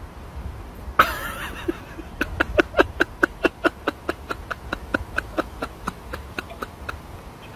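A bulldog grunting in short, rhythmic snorts, about four a second, as it wriggles on its back in the dirt. A brief rush of noise comes about a second in.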